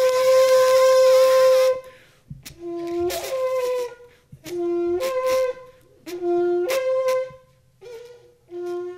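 A long spiral-horn shofar is blown. First comes one long, breathy held blast. Then come four short calls, each stepping up from a lower note to a higher one. The player says this call is one he does not do well.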